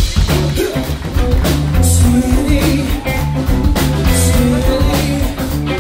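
Live soul-funk band playing a groove: drum kit and a repeating bass line keep a steady beat under guitar and trumpet, with a man singing.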